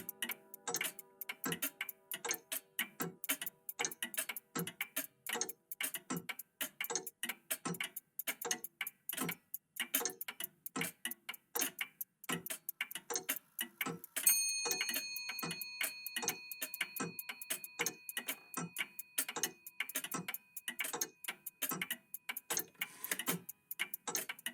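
Several old mechanical clocks ticking at once in overlapping rhythms, several ticks a second. A little past halfway through, a clock chime strikes once and rings on, slowly fading.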